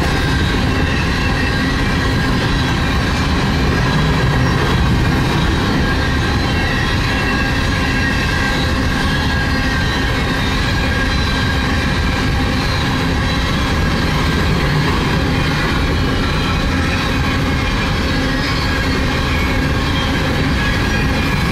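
Empty coal cars of a Union Pacific freight train passing at speed: a steady, unbroken rumble of steel wheels on rail, with thin high ringing tones above it.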